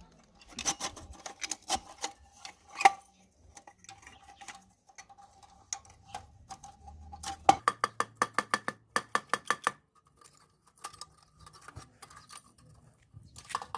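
Metal parts of an old lantern clinking and being tapped, some strikes leaving a short ringing tone. In the middle comes a quick, even run of taps, about five a second.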